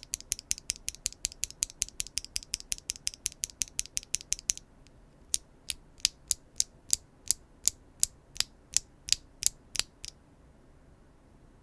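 Gateron Sage linear mechanical keyboard switches, stock with factory lube, pressed over and over. There is a fast run of sharp clacks, about seven a second, then a short pause about four and a half seconds in, then slower presses about three a second that stop about ten seconds in.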